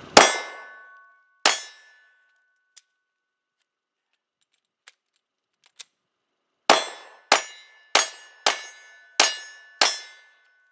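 Two 9mm Glock 19 pistol shots, a pause with a few small clicks of a magazine reload, then six quick shots about 0.6 s apart. A metallic ring lingers after several of the shots.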